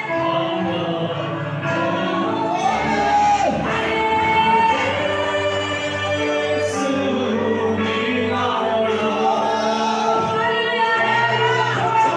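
Worship music in a church hall: many voices singing a gospel song together over musical accompaniment, with long held notes.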